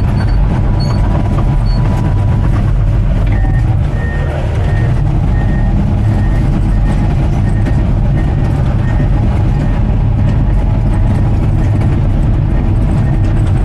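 Bulldozer's diesel engine running steadily, heard close up. A faint high beep repeats from about three seconds in.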